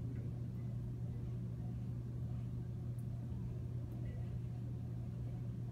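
Steady low hum of the room, with faint rubbing of a whiteboard eraser wiping marker off the board.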